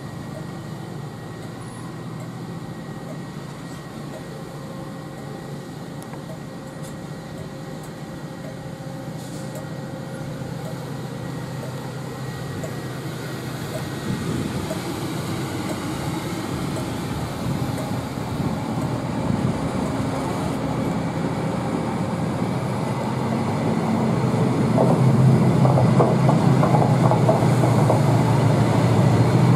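Loco-hauled passenger train of Mk3 coaches, pushed by a Class 68 diesel locomotive with a driving van trailer leading, rolling slowly past. The low diesel drone and rumble of the wheels on the rails grow steadily louder as the coaches pass, and they are loudest near the end.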